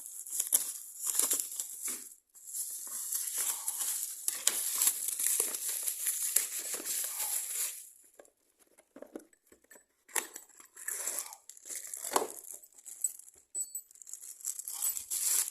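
Packaging being opened by hand: continuous rustling for about the first half, then scattered rustles and knocks, with one sharper knock about three-quarters of the way through.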